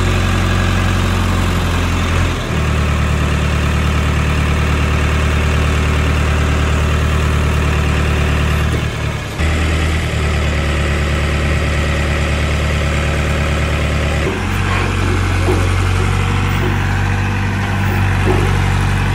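Diesel engine of an Escort Hydra mobile crane running steadily while the crane hoists a combine harvester on a sling. The engine's note changes speed three times.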